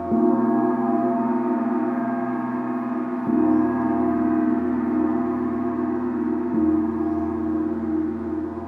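A gong struck three times, about three seconds apart, each stroke ringing on in deep tones that carry over into the next.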